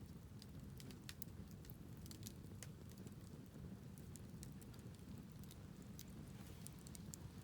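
Wood fire crackling: irregular sharp pops and snaps from burning wood, over a low steady rumble.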